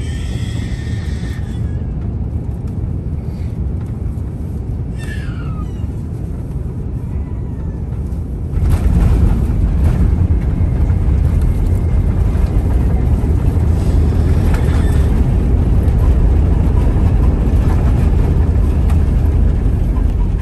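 Airbus A350 cabin noise at takeoff: a steady low rumble from the Rolls-Royce Trent XWB engines and the runway, which jumps sharply louder about eight and a half seconds in as takeoff thrust comes up and the aircraft accelerates down the runway.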